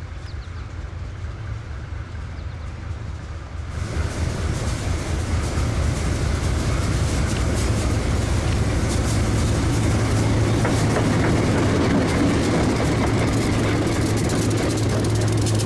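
Ex-Conrail GE "Super 7" diesel locomotives drumming steadily as they approach under power with a tank-car train. About four seconds in the sound jumps louder as they draw close, and then the wheels clatter over the rails as they roll past.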